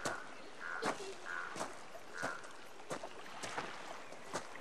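Footsteps crunching on a gravel beach at a walking pace, about one step every two-thirds of a second.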